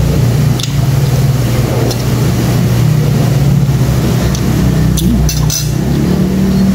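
A steady low motor hum with several level tones, loud and constant. A few short sharp clicks sound over it, most of them around five seconds in.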